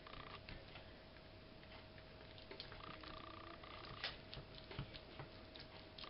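Faint soft taps and clicks of a hand pressing sticky yeast dough into flexible silicone baking molds, over a faint steady hum of a quiet kitchen.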